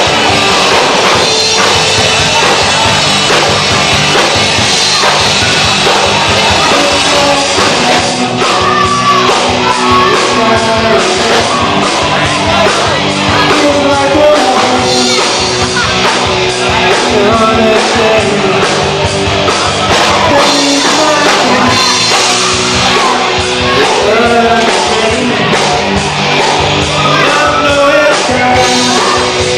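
Rock song with drums and guitar, a singing voice coming in about eight seconds in.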